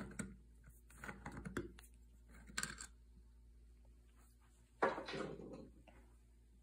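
Faint clicks and scrapes of a screwdriver working a small screw out of the enamelled metal lid of an Ironrite ironer's motor housing, with a louder knock about five seconds in.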